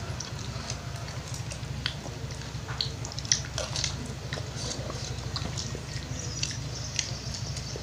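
Eating at the table: chewing, with scattered light clicks of metal spoons and forks on food and leaves, and one louder click a little over three seconds in, over a steady low hum.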